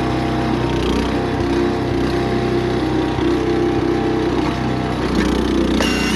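Small gasoline engine of a towable backhoe/trencher running steadily at a constant speed, driving its hydraulic pump. A brief high metallic ring near the end.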